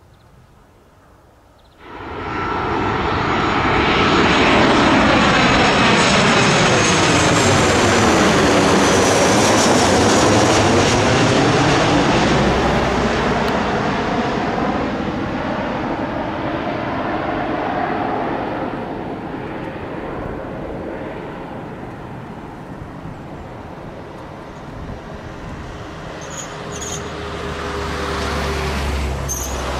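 Jet airliner's twin engines passing low overhead on final approach. The engine noise comes in suddenly about two seconds in and is loudest as the plane passes over, with a whooshing sweep that falls and then rises again. It then fades as the plane flies away toward touchdown, with a low rumble swelling again near the end.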